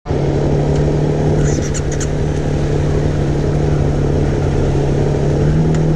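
Dirt bike engines idling steadily at a standstill, with a few light clicks about a second and a half in.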